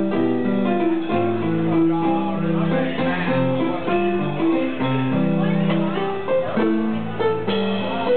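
Live music with a Yamaha S80 stage keyboard being played, held chords over a moving bass line.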